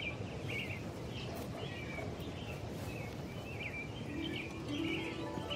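Small birds chirping repeatedly in short calls, about two a second, over a steady low background noise.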